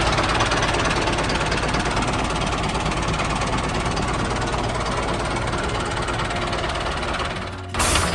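Small engine running steadily with a rapid, even knocking beat. It dips slightly near the end, and a short burst of noise follows.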